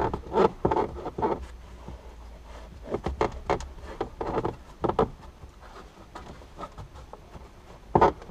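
2013 Audi A3's plastic A-pillar trim being pulled and worked loose by hand: a run of irregular clicks and knocks, clustered in the first second or so and in the middle, with a loud knock near the end.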